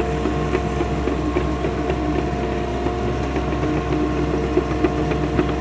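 Mini excavator's engine running steadily with a steady whine, and frequent light clicks and knocks throughout.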